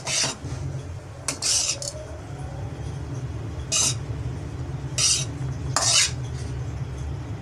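A metal spatula scraping and stirring cooked rice against a pan, in about five separate scrapes, over a steady low hum.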